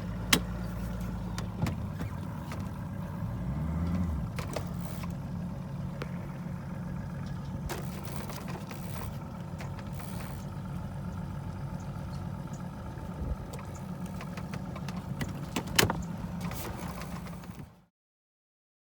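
An engine idling steadily, with a brief rev about three to four seconds in, and scattered clicks and knocks over it; the sound cuts off suddenly near the end.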